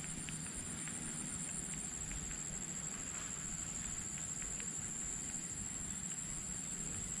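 Outdoor ambience: a steady, high-pitched insect chorus with a finely pulsing chirr, faint scattered ticks, and a low rumble underneath.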